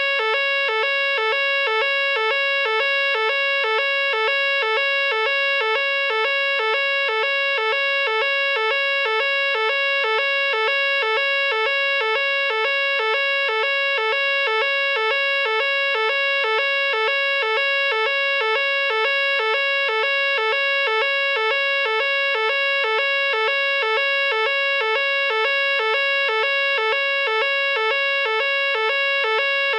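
Nugelec fire alarm sounder going off in a test: a loud, unbroken electronic alarm tone that pulses rapidly and evenly, ringing on without a break.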